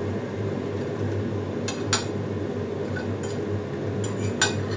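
Kitchen extractor hood fan running with a steady hum, with a few sharp clinks of kitchenware; the loudest come about two seconds in and near the end.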